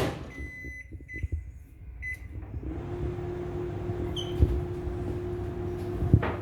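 Microwave oven door shut with a click, a few short keypad beeps, then the microwave starts up and runs with a steady hum.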